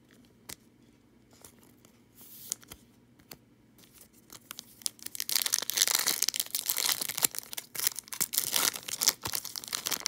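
A trading-card pack's foil wrapper being torn open and crinkled by hand. The first few seconds hold only faint handling clicks; then, from about four seconds in, comes a dense run of loud crinkling and tearing.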